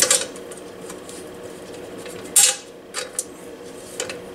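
A metal wrench clinking on the caster's 13 mm nut and the steel stool base as the loosened nut is turned off: scattered light clicks, with one louder metallic clatter a little past halfway.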